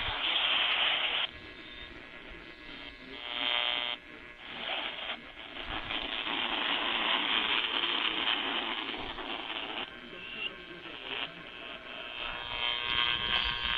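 Radio receiver on a weak, distant station: hiss and static with faint station audio fading in and out under it. The clearer audio drops out suddenly about a second in.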